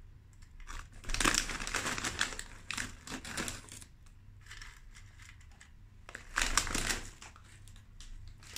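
Crinkling plastic snack bag of pretzel sticks being handled, in two bursts: a longer one about a second in and a shorter one past six seconds.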